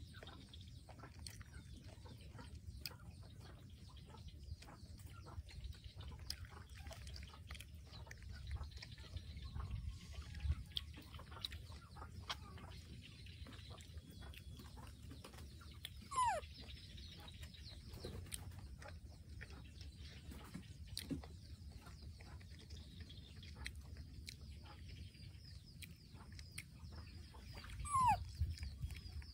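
Baby macaque giving short, high calls that drop sharply in pitch, twice: about 16 seconds in and again near the end. Between them, a low rumble and scattered small clicks and rustles.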